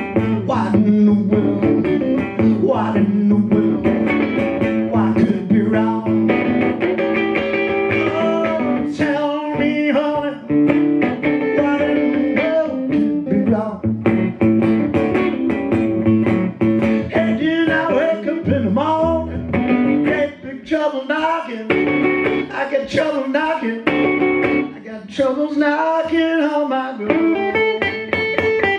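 Solo blues played on a resonator guitar, plucked notes over a steady bass, with some notes that bend in pitch.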